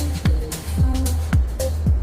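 Background electronic music with a steady kick-drum beat, about two beats a second, over a sustained bass line.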